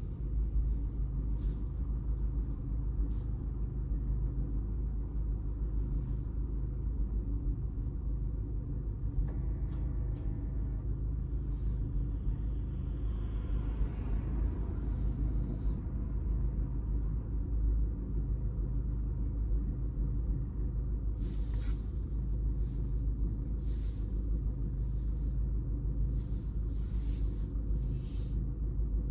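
Opel Astra H on the move: a steady low rumble of engine and road noise. About ten seconds in there is a short pitched sound, and a little later a brief swell of noise.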